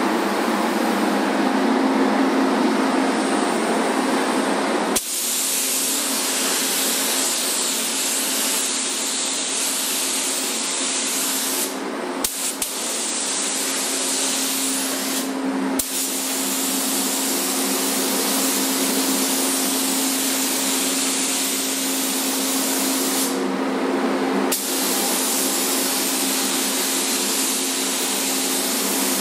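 Gravity-feed paint spray gun hissing steadily as compressed air atomises paint onto a car bumper, over a steady hum. The hiss drops out briefly three times, with a few sharp clicks.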